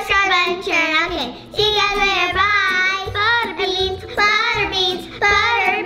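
Two young girls singing together in a sing-song chant, their high voices holding and gliding between notes with short breaks.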